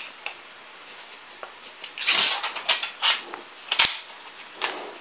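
Handling noise from long whip antennas being picked up and fitted: rustling and small clicks from about two seconds in, with one sharp knock nearly four seconds in.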